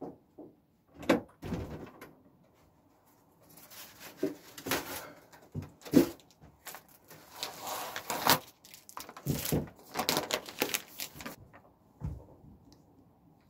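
Irregular knocks and clunks mixed with bursts of rustling, as of objects being handled and moved about; the loudest knock comes about six seconds in.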